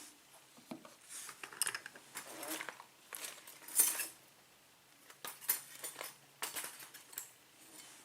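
Small metal lock parts clinking and scraping in short, irregular bursts as a pin-tumbler lock cylinder is taken apart to get at its top pins.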